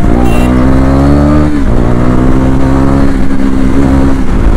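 KTM Duke 250's single-cylinder engine accelerating through the gears: the pitch climbs, drops sharply at an upshift about a second and a half in, then rises more slowly and levels off.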